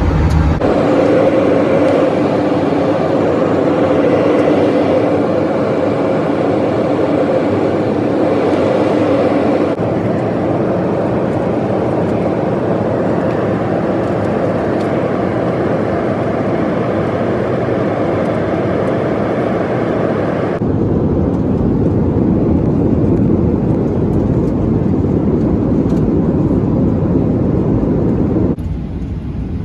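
Boeing 737-800 cabin noise: a steady rush of engine and airflow with a faint hum. It changes abruptly a few times, about ten and twenty seconds in, and the part after twenty seconds has a deeper rumble.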